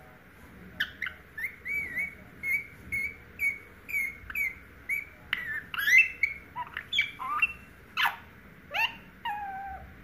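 Indian ringneck parakeet chirping: a string of short, quick chirps about two a second, then a few louder calls that sweep up and down, ending in a longer falling call.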